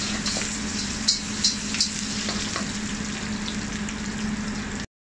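Chopped onion sizzling in hot oil in a black steel wok, with a few sharp clicks in the first two seconds. The sizzle cuts off suddenly just before the end.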